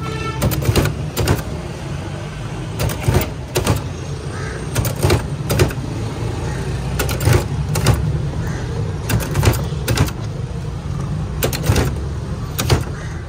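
Steady low rumble of road traffic with irregular sharp clicks and knocks, about one every second.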